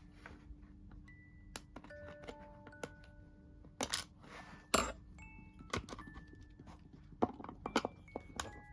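Light background music of chime-like notes, with scattered sharp clicks and knocks, the loudest about five seconds in.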